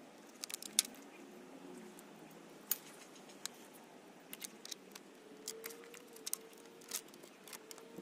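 Wrenches clinking on the muffler hanger bolt and bracket as the exhaust mount is tightened: irregular sharp metallic clicks, a few louder ones standing out.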